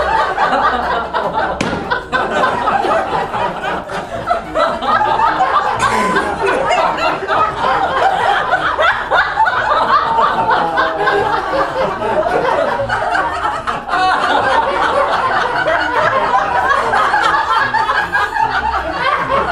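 Laughter with chuckling and snickering from several overlapping voices, loud and unbroken.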